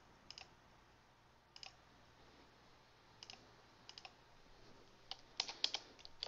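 Faint clicks of a computer keyboard and mouse: a few single clicks spaced a second or more apart, then a quick run of keystrokes near the end.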